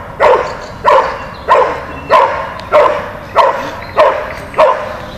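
A dog barking steadily and rhythmically, one sharp bark about every 0.6 seconds, eight in all. This is the dog's bark-and-hold on a motionless helper in IPO protection work.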